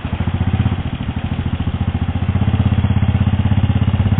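A 500 ATV's engine running at low revs as the quad noses against a rock ledge, getting louder about a second and a half in as the throttle opens.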